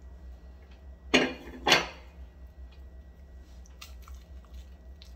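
Fried tortilla chip crunching as it is bitten: two loud crunches about half a second apart, then a few faint crunches of chewing.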